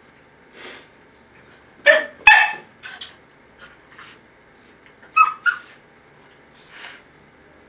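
Jack Russell–beagle cross barking at its own reflection in a mirror: short, sharp barks, two close together about two seconds in, two more about five seconds in and one near the end, with softer huffs in between.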